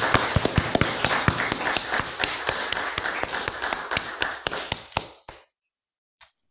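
Congregation applauding, a dense patter of hand claps that thins out and stops about five seconds in.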